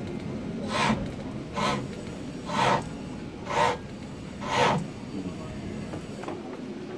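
Turning chisel cutting wood on a foot-treadle pole lathe while turning a wooden honey dipper: five cutting strokes about a second apart, one for each turn of the work towards the tool. The strokes stop a little before five seconds in.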